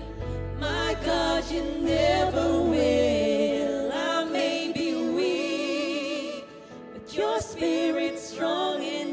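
Live contemporary worship music: singers over a band, with the low bass dropping out about three to four seconds in while the singing carries on.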